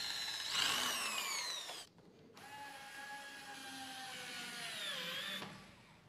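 Corded electric drill drilling through the fixing holes of a metal latch plate into a PVC door edge. It runs in two bursts with a short stop about two seconds in, and its whine falls in pitch as each burst winds down.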